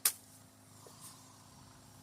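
A single sharp knock right at the start, then a faint click about a second later.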